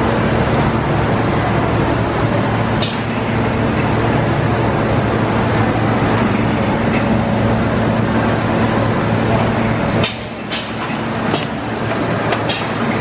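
Haas wafer production line running: conveyors and rollers give a steady mechanical hum, with a few sharp clicks or knocks, two of them close together about ten seconds in.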